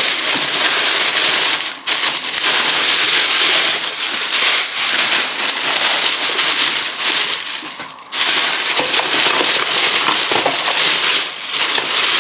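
Thin plastic shopping bags rustling and crinkling loudly as hands rummage in them and pull items out, with brief lulls about two seconds in and again about eight seconds in.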